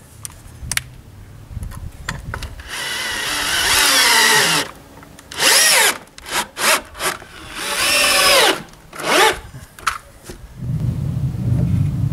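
Cordless drill-driver driving screws into the wooden boards of a formwork frame, in about four runs of one to two seconds. The motor's whine rises and falls in pitch, with short knocks between the runs.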